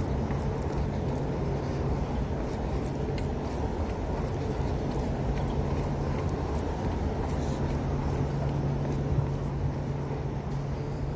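Steady city traffic rumble with a low steady hum, and faint footfalls on concrete steps.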